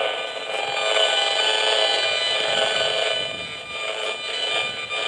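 Gigahertz Solutions HF35C RF meter's speaker giving a steady, buzzing alarm-like tone made of many stacked pitches: its audio rendering of pulsed microwave radiation picked up by the antenna.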